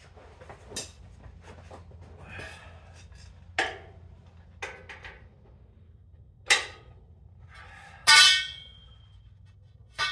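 A steel breaker bar and cheater pipe clanking against the concrete floor and the truck's rear axle as they are handled and fitted to a stuck nut: about six sharp metal clanks, the loudest about eight seconds in, ringing briefly.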